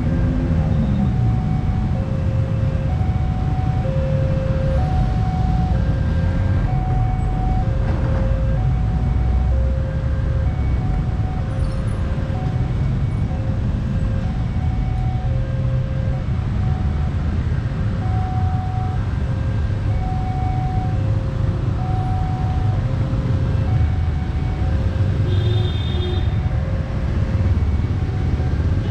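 Railway level-crossing warning alarm sounding, a low and a high electronic tone taking turns, roughly one tone a second, over a loud, steady low rumble of heavy engines. A brief high beep sounds near the end.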